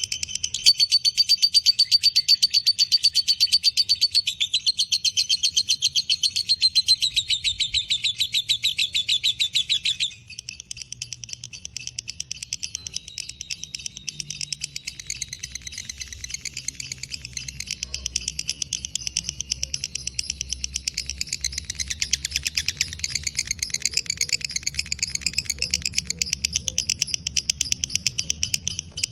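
Lovebird giving a long 'ngekek' chatter: a fast, unbroken run of high, harsh chirps. It is loud for about the first ten seconds, then drops in level and carries on more quietly.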